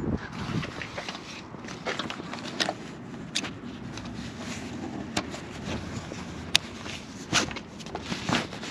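Handling noise from tent setup: a low rustle of canvas and gear with scattered sharp clicks and knocks, about one every second or so, as of buckles, poles or strap hardware being worked.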